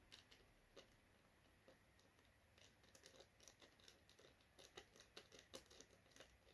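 Near silence with faint, scattered small clicks of CPU-cooler mounting screws and bracket parts being handled and turned by hand. The clicks grow more frequent in the second half.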